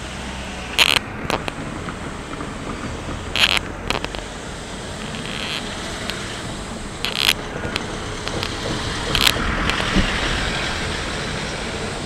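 Steady outdoor background noise with wind on the microphone. About half a dozen sharp, irregular clicks sit on top, the loudest near the start, in the middle and towards the end.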